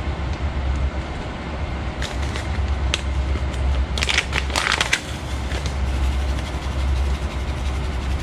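Spoon scraping and clicking in a cooking pot of pasta, with a thick cluster of scrapes about four to five seconds in, over a steady low rumble.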